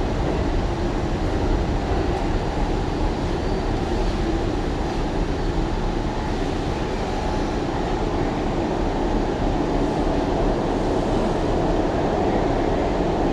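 Steady running noise inside an R179 subway car as the train travels: the rumble of wheels on rail and the car's propulsion, even and unbroken throughout.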